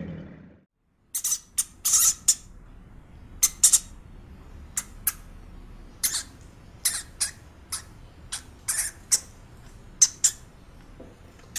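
Hamsters squeaking: many short, sharp, high-pitched squeaks at irregular intervals, roughly two a second.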